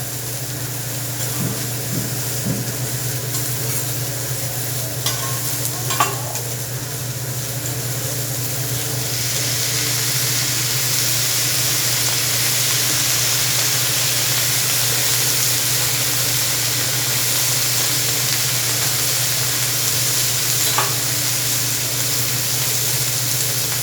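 Filet mignon sizzling on a teppanyaki griddle, cooked rare, with the sizzle growing louder about nine seconds in. A steady low hum runs underneath, and there are a few light clicks.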